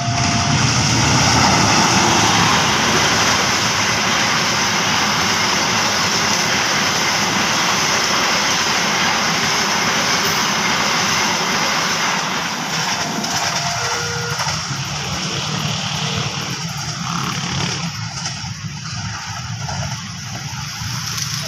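A passenger train hauled by a CC 206 diesel-electric locomotive passing at speed: the steady rush and rumble of the coaches' wheels on the rails, loudest near the start and easing off after about 17 seconds. Short two-note tones sound at the very start and again about 13 seconds in.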